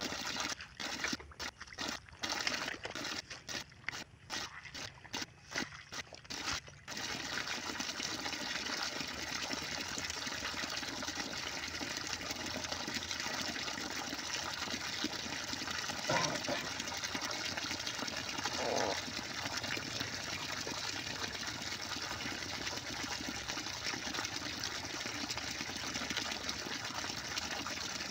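Steady rushing noise like running water, choppy with repeated brief cut-outs for the first several seconds, then continuous.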